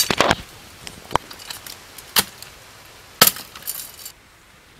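Dry firewood being chopped and split into small pieces with a machete: four sharp cracks roughly a second apart, with a brief crackle of splintering wood after the last.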